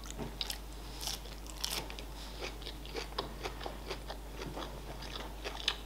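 A person chewing a mouthful of salmon sushi roll close to the microphone: irregular soft clicks and small crunches of teeth and mouth.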